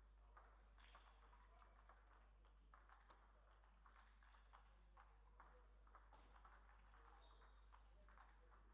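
Faint table tennis ball clicks, the plastic ball striking bats and the table, coming irregularly several times a second, over a steady low hum.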